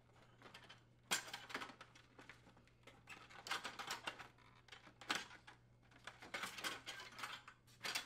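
Faint, irregular clicks and clinks of an ice machine door assembly being handled by hand as its bottom trim is detached, with the metal hinge rails knocking lightly. The clicks come in small clusters.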